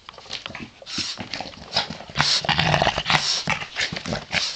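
Boston terrier making play noises while tugging at a toy, among irregular short knocks and rustles.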